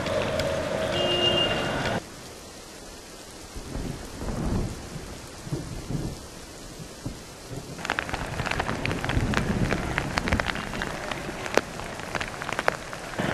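Heavy rain pouring with thunder. The sound changes abruptly about two seconds in to a duller, quieter stretch, and from about eight seconds on it turns brighter, with many sharp cracks.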